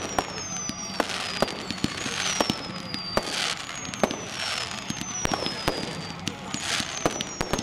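Fireworks going off: frequent sharp pops and bangs, whooshing hisses as shots go up, and thin high whistles gliding down in pitch, several times over.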